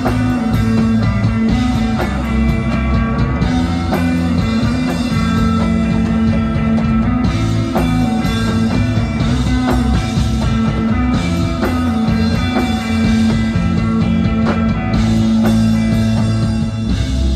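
Live rock band playing: electric guitar over bass guitar and a drum kit with repeated cymbal hits.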